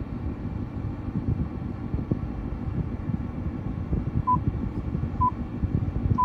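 Three short, identical high beeps from the 2018 Jaguar XF's infotainment touchscreen as it is tapped, about a second apart in the second half. Under them runs a steady low rumble in the car's cabin.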